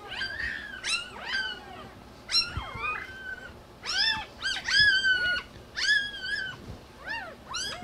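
One-day-old German Shepherd puppies crying: a string of about a dozen short, high-pitched squeals, each rising and then falling in pitch.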